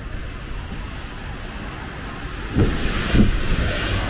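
A vehicle passes on a wet road, its tyre hiss swelling about halfway through with two low thumps about half a second apart, over a steady low rumble of wind and traffic.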